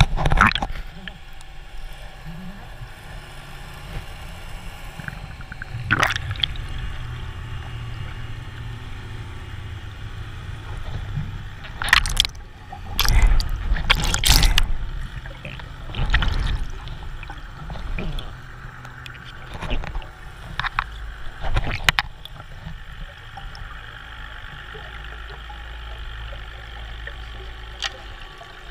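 Underwater sound picked up by a camera in the sea: a steady low rumble, broken several times by short, loud bursts of bubbling and sloshing water, the loudest about twelve to fifteen seconds in.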